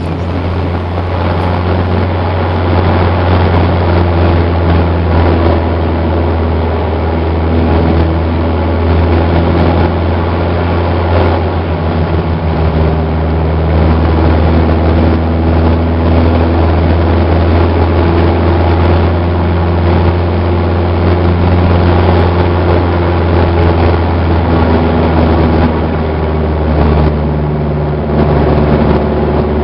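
An RV-4's 160 hp four-cylinder piston engine and propeller running at high power through aerobatic manoeuvres, heard inside the cockpit. The engine note holds steady but shifts slightly in pitch a few times as the aircraft is manoeuvred.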